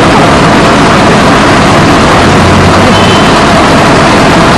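Heavy diesel engine of a fire department aerial ladder truck running steadily, a loud, unbroken noise.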